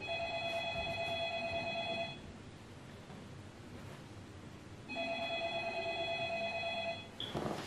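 A telephone ringing twice, each ring a trilling electronic tone about two seconds long, with a pause of about three seconds between them: a call waiting to be answered.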